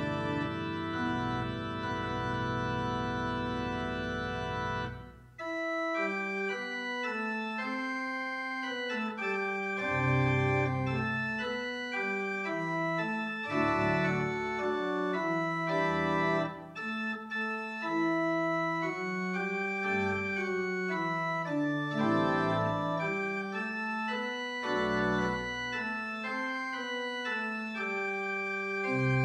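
Church organ playing the postlude after the dismissal. A full held chord ends about five seconds in, then a passage of moving notes over a shifting bass line begins.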